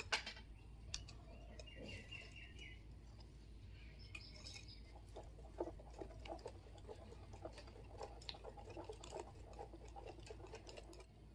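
Stainless-steel wire whisk beating thick batter in a bowl: faint, quick wet clicks and taps of the wires against the bowl, coming thickest in the second half.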